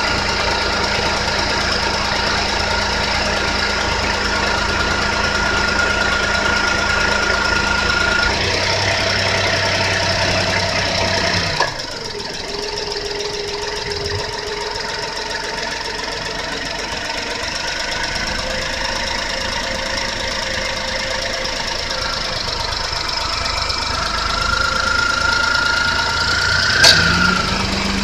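Honda Life (JB1) three-cylinder engine idling with a steady high whine, which the owner blames on its replacement rebuilt alternator. About twelve seconds in, after a click, the whine and a low hum drop out while the engine keeps running. Near the end, after another sharp click, they come back.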